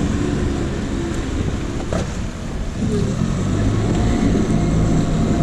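A boat's outboard motor running steadily at low speed, a constant low hum, with wind and water noise.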